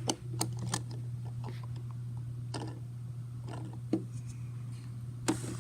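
Light clicks and knocks of plastic toy food and a toy microwave being handled, as a toy burger is put into the microwave, over a low steady hum.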